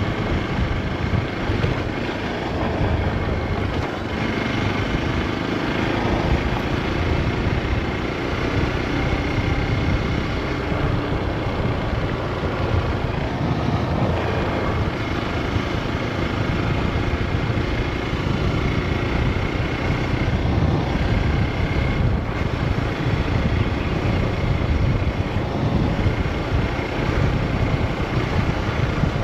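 Hero XPulse 200 4V's single-cylinder 200 cc four-valve engine running steadily while the motorcycle rides along, mixed with steady wind and road noise at the rider's camera.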